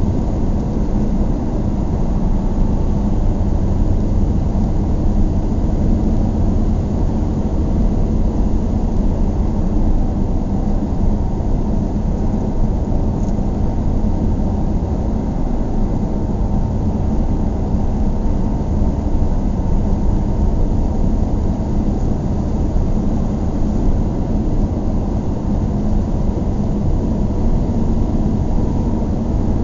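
Car driving on a highway: steady engine and tyre road noise, a low rumble that holds even throughout.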